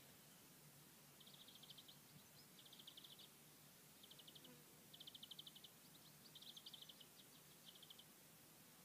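Faint outdoor quiet with a small bird's rapid trilled calls, repeated in short high bursts about every second.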